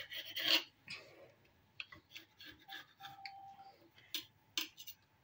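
Kitchen knife blade pressing through rolled dough and scraping and tapping on ceramic tile. A short scrape comes at the start, then scattered light clicks and taps.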